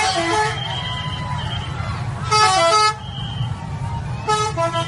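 Bus 'telolet' multi-tone horn playing short tunes of quick stepped notes, in three bursts with the loudest about two seconds in, over a steady low rumble.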